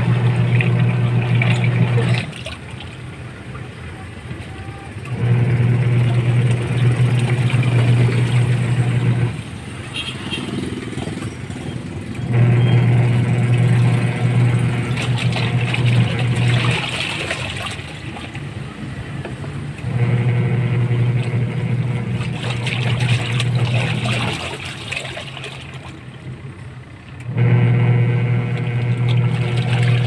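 Top-loading washing machine agitating a tub of water and clothes, with its belt drive re-tightened. The motor hums for three to four seconds at a time, then stops for about three seconds while the water keeps sloshing, then starts again, over and over.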